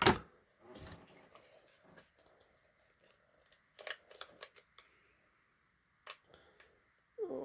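Plastic toy parts of a Mattel Masters of the Universe Origins Stridor figure being handled and pushed into place on its front: a sharp knock at the start, then scattered small clicks and rubbing, with a cluster of clicks about four seconds in.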